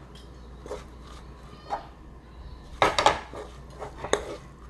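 A red spatula scraping and knocking against a nonstick wok as gochujang-glazed anchovies are tossed: a few separate scrapes, with a louder cluster about three seconds in.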